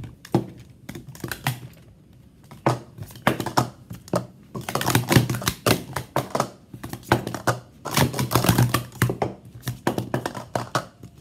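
Plastic sport-stacking cups (Speed Stacks) clattering as they are stacked up and brought back down at speed on a stacking mat: a fast, uneven run of light plastic clicks and clacks, busiest about halfway through and again near the end.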